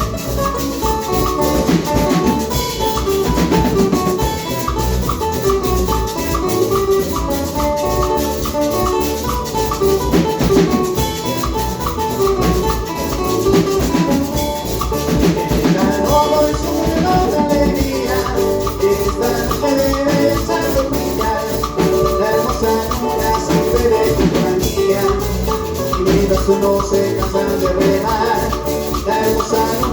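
Instrumental Latin American dance music: a melody of held notes over a steady beat of drums and maracas.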